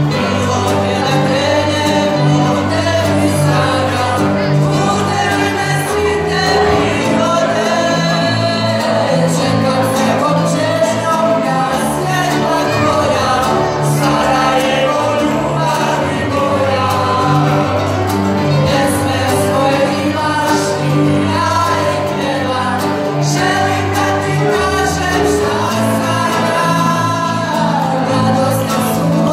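A small live band plays with several voices singing: acoustic guitar, electric bass and keyboard, with a steady bass line under the sung melody.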